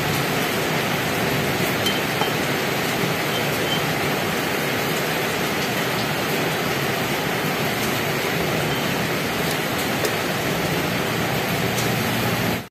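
A steady, even hissing noise at a constant level, with no clear knocks or tool sounds standing out.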